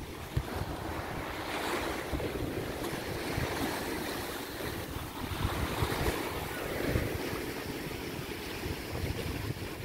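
Sea swell washing against a rocky shoreline, with wind buffeting the microphone. The surf surges up about two seconds in and again about seven seconds in.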